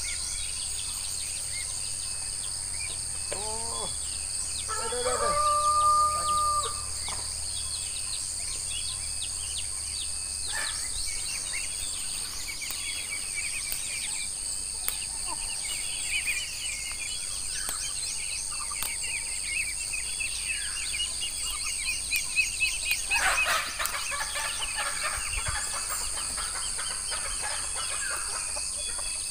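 A rooster crows once about five seconds in, over a steady high drone of insects with scattered small bird chirps. A short scratchy burst comes near the end.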